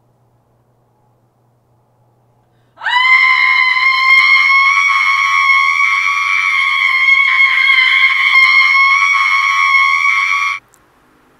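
A woman's long, high-pitched scream. It rises quickly at the start, holds one steady pitch for about eight seconds, and cuts off suddenly.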